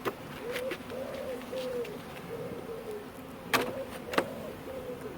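Honey bees buzzing in flight around an opened hive, a low steady hum with a wavering higher tone as bees pass close. A sharp knock of wooden hive parts being handled sounds about three and a half seconds in, with a smaller one just after.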